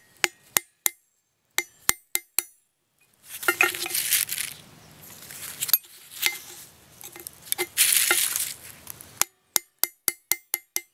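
Hammer blows on a steel chisel driven into an old floor-mounted dimmer switch, each a sharp metallic clink with a short ring. The blows fall singly at first, then come in a quick run of about three a second near the end, with two longer stretches of rough noise in between.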